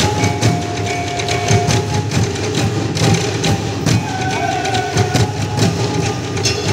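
Percussion-led music for a Bukidnon cultural dance: a steady beat of sharp struck-percussion hits, with a few held high notes above it.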